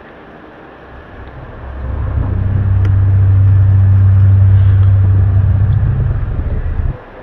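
A loud, low, steady drone of the kind reported worldwide in 2012 as 'strange sounds'. It swells in over about a second, holds one deep pitch, and cuts off suddenly near the end, over a steady background hiss.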